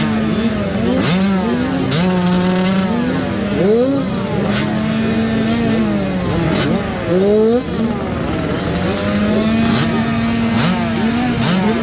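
A group of 65cc two-stroke motocross bikes revving together. One engine is held at a steady high speed while others are blipped up and drop back again and again.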